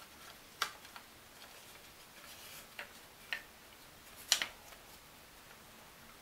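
Light clicks and taps of thin laser-cut plywood model parts being handled, a loose wooden axle and wheels knocking against the frame; a handful of sharp clicks, the loudest about four seconds in.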